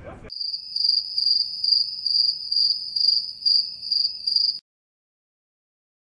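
Cricket chirping sound effect: a high, steady trill pulsing about twice a second, cut in abruptly and stopped dead after about four seconds, followed by complete silence.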